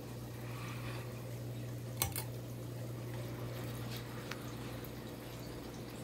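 Crown 52-inch ceiling fan running: a steady low motor hum with a soft rush of air from the blades. A few sharp clicks break in, the loudest about two seconds in with another just after it and a fainter one past four seconds.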